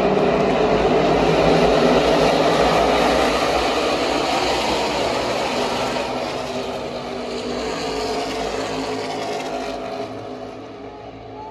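A pack of NASCAR Xfinity Series stock cars running at racing speed, many V8 engines blending into one loud drone. It is loudest in the first few seconds, then fades steadily as the field moves away.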